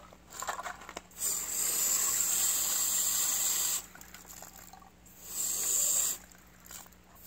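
Cleaning spray hissing into an AK-pattern shotgun, flushing grime out of the gun: one long burst of about two and a half seconds, then a shorter burst about five seconds in.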